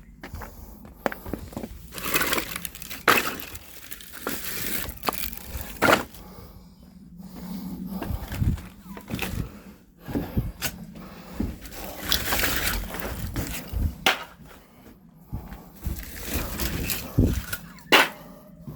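Split firewood logs clunking and clattering against one another as they are unloaded and stacked: irregular sharp wooden knocks with some scraping between them.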